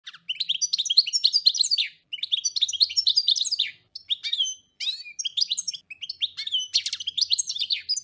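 A songbird singing phrases of rapid high notes, each a second or two long with short breaks between them.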